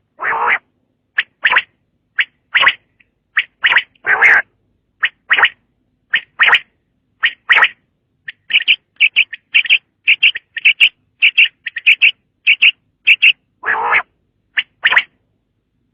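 Common quail calling: short, sharp notes around the same high pitch, repeated in quick groups, with a few longer, rougher calls in between.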